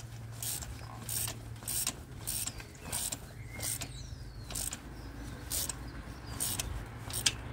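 Ratchet wrench clicking in repeated short strokes, two or three a second, as a spark plug is turned, over a low steady hum.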